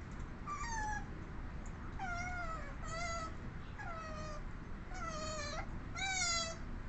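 Asian small-clawed otters calling: six high, squealing calls about a second apart, each wavering and dipping in pitch. The last call is the loudest.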